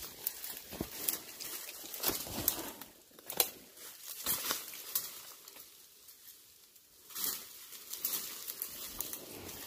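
Footsteps crunching through dry leaf litter while the body pushes through brush, stems and twigs rustling, scraping and snapping against clothing in irregular crackles. A brief lull comes a little past halfway.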